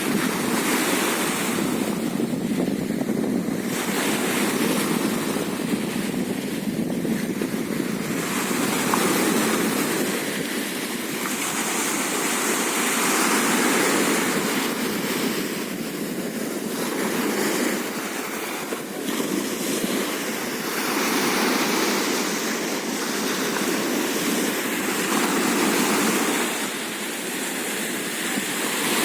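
Sea waves breaking and washing up a sandy beach, the surf swelling and easing every four seconds or so.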